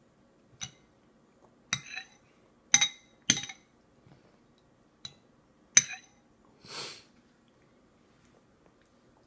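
A metal spoon clinking against a baby's feeding bowl: about six sharp, ringing clinks spread irregularly over six seconds. A short breathy rush comes near the end.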